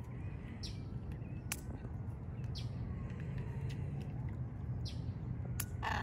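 Birds calling: faint chirps and thin whistles over a steady low rumble, with a few short sharp calls, the loudest near the end.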